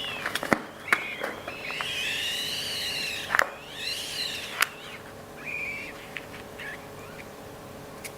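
Rubber balloons squeaking as they are handled: several high squeaks that rise and fall in pitch, mixed with a few sharp clicks and snaps in the first half.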